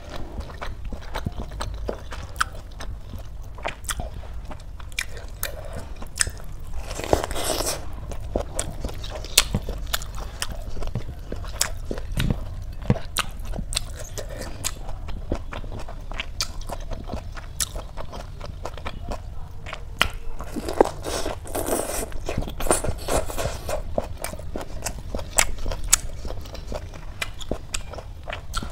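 Close-miked eating: wet chewing and mouth clicks as spiced rice and cabbage are eaten by hand, with louder crunchy bites about seven seconds in and again past the twenty-second mark.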